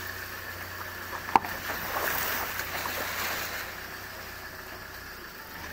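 Vehicle driving along a rough dirt road: a steady low engine hum under road noise, with a sharp knock about a second and a half in and a louder stretch of rough road noise for about two seconds after it.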